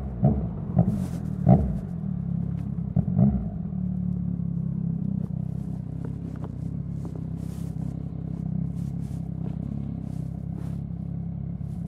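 2021 Yamaha MT-09's 889 cc three-cylinder engine through a MIVV X-M5 full exhaust with the baffle in: a few sharp loud pops in the first three seconds, then a steady low idle.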